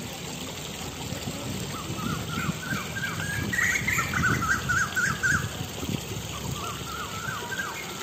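Shallow stream trickling over rocks. A bird calls in quick series of short repeated notes from about two seconds in, and again near the end.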